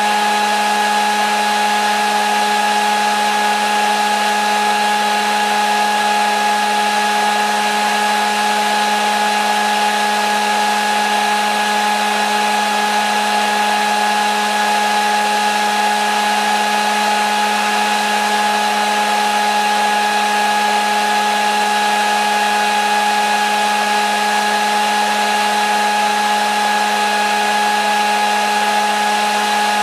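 Hair dryer running steadily: a constant rush of air with a steady motor hum and whine that does not change.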